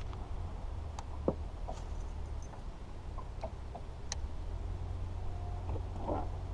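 A steady low rumble, with a few scattered light clicks from the fishing tackle and boat gear.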